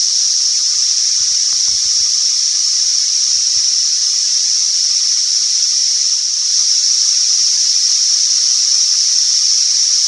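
A chorus of double drummer cicadas calling, a practically deafening, shrill, unbroken buzz that gets a little louder about six and a half seconds in.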